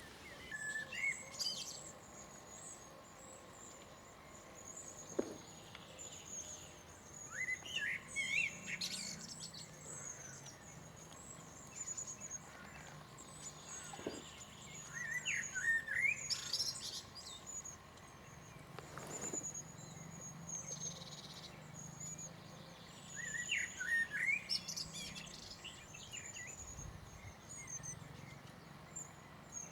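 A songbird singing short, quick phrases about every eight seconds over a quiet riverside background. A thin, high, steady chirring runs underneath.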